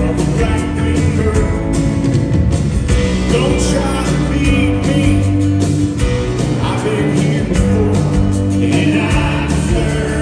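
Rock band playing live with a male lead singer: singing over bass guitar, piano and organ.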